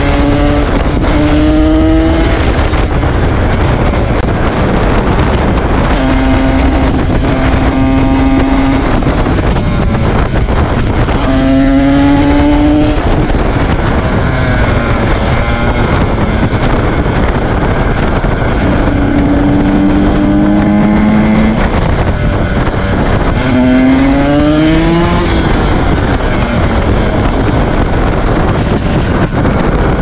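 Single-cylinder two-stroke engine of a KTM 125 SX supermoto running under way, rising in pitch three times as it pulls up through the revs and holding a steady note in between.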